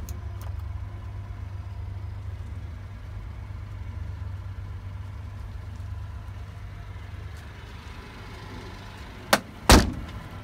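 Honda Acty kei truck's small three-cylinder engine idling steadily, with a dash switch clicking at the start. Near the end come two sharp bangs, the loudest sounds, as the cab door is shut.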